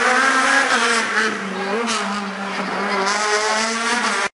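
Rally car engine held at high revs through a corner, its note wavering slightly up and down, with tyre noise underneath; it cuts off abruptly near the end.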